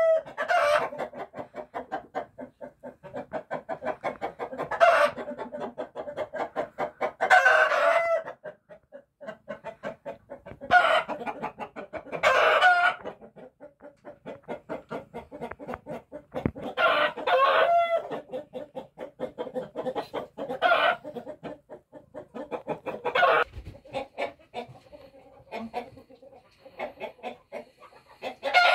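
Broody mother hen clucking: a steady run of low, quick clucks, broken every few seconds by louder, longer calls.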